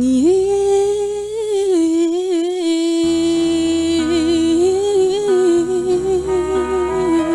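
A female singer holds a long wordless note with vibrato and small runs, sliding up into it at the start, over a soft backing track of sustained chords.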